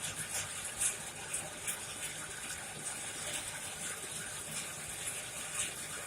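Coal forge fire burning with a steady rush, broken by frequent small crackles and pops.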